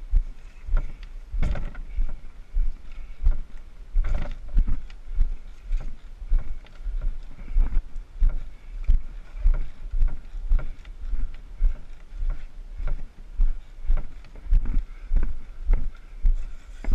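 Walking footsteps on a rocky dirt trail under a canoe carried overhead, each stride jolting the canoe into a low thump, about two a second.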